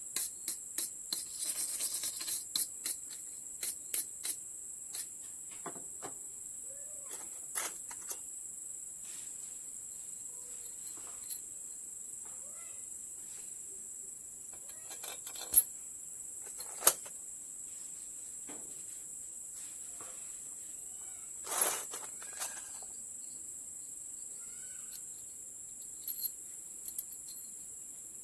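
Scattered short clicks and taps, with louder knocks about 15 and 17 seconds in and around 21 seconds, over a steady high-pitched insect chorus.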